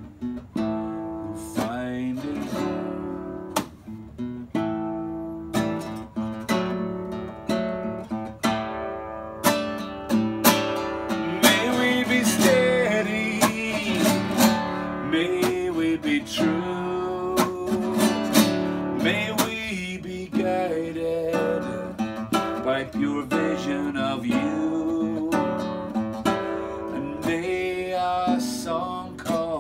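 Solo acoustic guitar strummed and picked, playing a song accompaniment that gets busier and louder in the middle.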